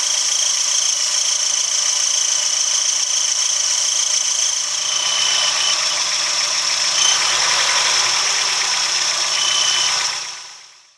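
Eunos Roadster NA6CE's 1.6-litre four-cylinder engine idling, with a steady, high-pitched chirping like a bell cricket or cricket coming from around the alternator. It is an abnormal noise that turned out to be neither belt squeal nor a worn alternator bearing. The sound fades out near the end.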